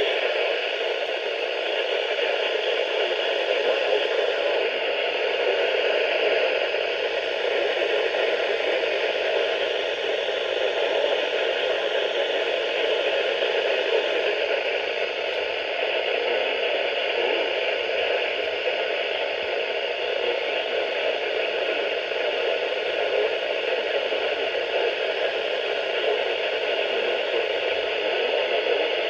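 Steady radio static: a receiver's even hiss with no clear signal.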